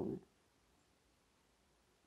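Near silence: a faint, steady room hiss after a voice trails off at the very start.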